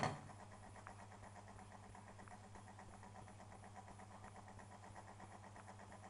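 Ariston washing machine switching on with a sharp click, then running with a steady low hum and a faint, rapid ticking.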